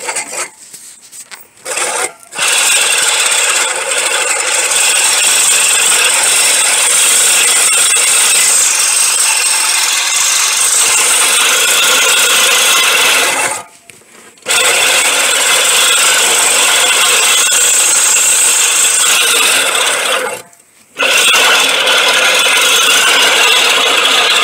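Greenworks 25062 18-inch push reel mower being pushed through grass, its spinning reel blades cutting against the cutter plate. The cutting sound starts about two seconds in and runs in three long stretches, broken by two short stops: one a little past halfway and one near the end.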